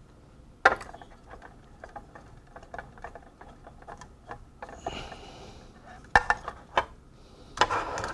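Small hard clicks, knocks and clatter of a tablet circuit board and metal tools being handled and fitted into a holder on a workbench, with the sharpest knock just under a second in and a brief scrape about five seconds in.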